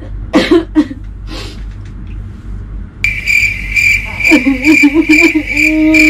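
Comic 'crickets' sound effect: a high, pulsing cricket trill that cuts in abruptly about three seconds in. A voice hums a wavering, then held, note over it near the end.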